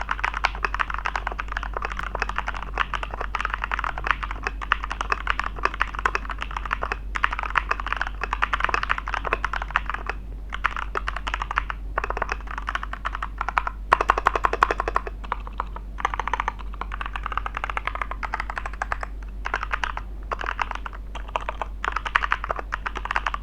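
Typing test on a Jingzao K2 mechanical keyboard with brown tactile switches: a fast, dense run of keystrokes with brief pauses between bursts. A cluster of louder strokes comes about fourteen seconds in, over a faint steady low hum.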